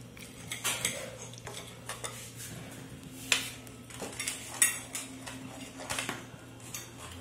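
A metal spatula scraping and clinking against aluminium pizza pans as slices are lifted out, with scattered clinks of cutlery and dishes. The sharpest clinks come about three seconds and four and a half seconds in.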